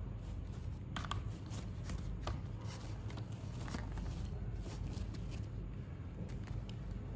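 Kitten clawing and biting at a hanging cloth: irregular light scratching and rustling of fabric, over a low steady hum.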